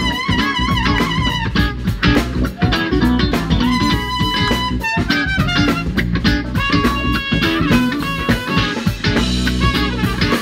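Live band playing: a trumpet leads with held notes and short phrases over electric guitar and a drum kit.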